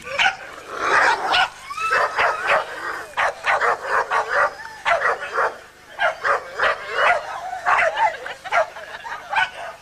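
Dog barking and yipping over and over, several short high-pitched yips a second.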